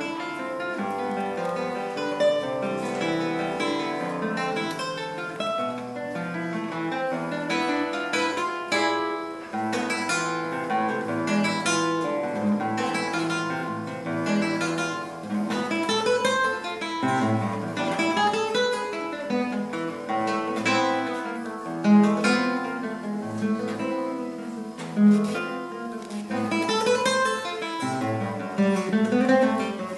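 Background music played on acoustic guitar, with plucked and strummed notes.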